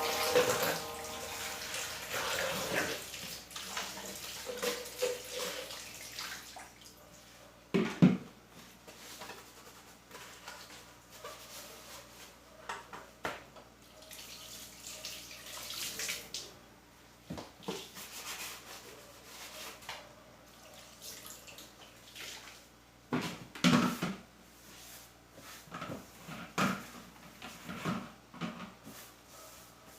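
Water running from a kitchen tap in spells, with scattered knocks and clatter of dishes and things being handled, the sharpest about eight seconds in and again around twenty-three to twenty-four seconds.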